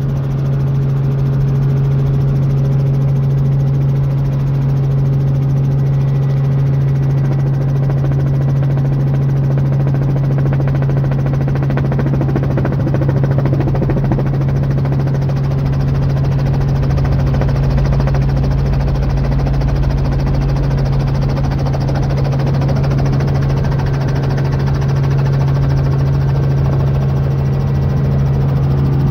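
Robinson R44 helicopter heard from inside the cabin: a steady, loud drone and hum from its piston engine and rotors as it sets down on grass.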